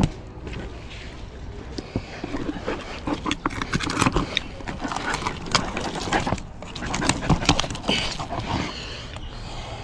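Filleting knife cutting and scraping along the back and bones of a whole bluefin trevally on a cutting board. Irregular clicks and scrapes, busiest from about three seconds in until near the end.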